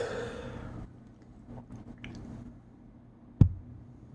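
The tail of a loud human sneeze trailing off in a breathy exhale, then a few faint small noises and a single sharp knock about three and a half seconds in.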